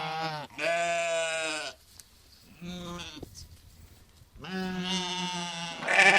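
Sheep bleating: the tail of one bleat, then a bleat of about a second, a shorter fainter one midway, and a long bleat near the end that grows louder.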